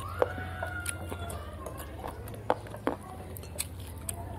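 A drawn-out call that rises and is then held for about a second at the start, then a few sharp clinks like utensils against a bowl, over a steady low hum.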